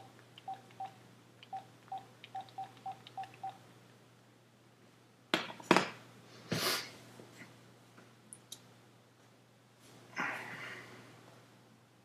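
Mobile phone keypad beeping as a number is dialled: about ten short beeps of one pitch over three seconds. A few loud knocks follow around the middle, then a softer rustle.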